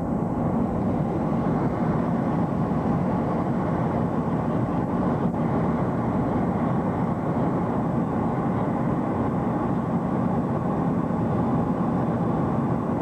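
Steady in-flight noise of a jet airliner heard from inside the cabin: the engines and rushing airflow make a constant low rumble.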